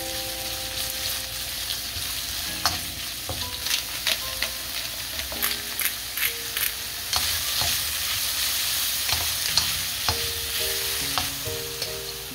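Sliced peppers, onion, mushrooms, ham and sausage sizzling in olive oil in a nonstick wok as they are stir-fried, with a steady hiss and frequent short clicks and scrapes of a wooden spatula against the pan.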